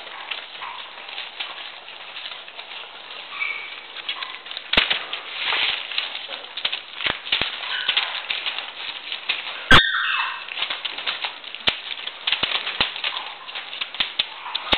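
Newspaper rustling and crackling under Polish Tatra Sheepdog puppies as they scramble and wrestle on it, with a sharp knock about ten seconds in.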